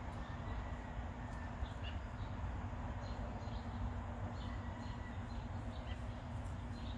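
Steady low outdoor background rumble with a faint constant hum, and a few faint, short high chirps now and then.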